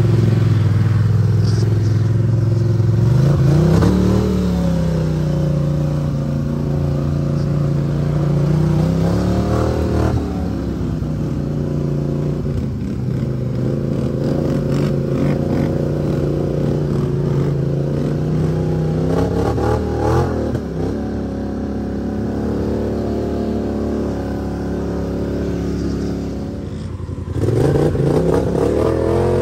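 Off-road vehicle engine running and revving. The pitch climbs about three seconds in, rises and falls again around ten and twenty seconds, and climbs once more near the end.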